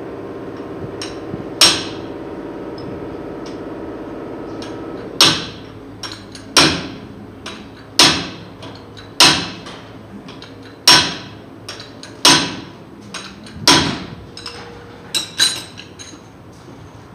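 Hammer striking metal at a truck's wheel hub and brake assembly, about ten hard blows spaced roughly a second and a half apart. The first blow leaves a metallic ring hanging for a few seconds, and two quick blows come close together near the end.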